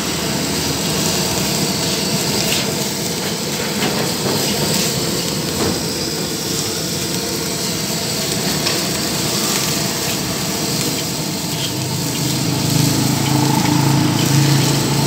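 Fried rice being stir-fried in a steel wok: a metal spatula scraping and clinking against the pan over a steady sizzle. A steady low hum runs underneath and grows louder near the end.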